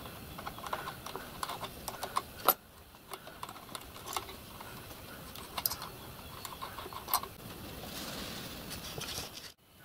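Small metallic clicks and taps as brass pipe unions on a miniature steam locomotive are undone and the brass injector is worked free by hand, irregular, with a sharper tap about two and a half seconds in.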